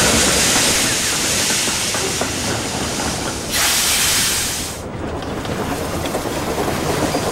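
Steam-train sounds: a steady rushing hiss with running-train noise, and a stronger burst of steam hiss about three and a half seconds in, lasting just over a second.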